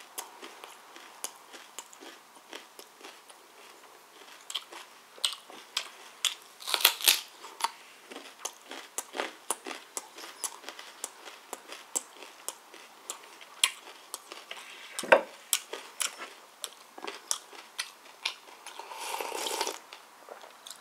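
Close-up chewing and crunching of raw carrot and chicken, with many small wet mouth clicks and a loud crunchy bite about seven seconds in. A sharp knock comes about fifteen seconds in, and a noisy sip from a cup near the end.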